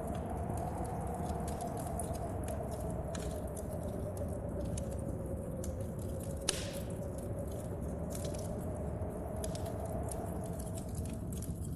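Wood fire crackling with scattered small pops and one sharper, louder pop about six and a half seconds in, over a steady wash of rain and wind with a low moaning tone.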